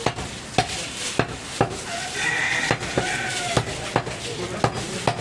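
A butcher's cleaver chopping goat meat on a wooden chopping block: about nine sharp chops at an uneven pace of roughly two a second.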